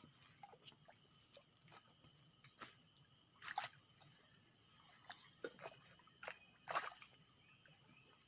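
Quiet riverbank: faint scattered ticks and small water sounds, two of them a little louder, over a steady high insect drone.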